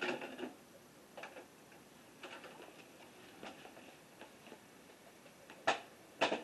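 VCR tape mechanism clicking as a VHS tape starts to play: scattered faint ticks, then two sharp clicks about half a second apart near the end.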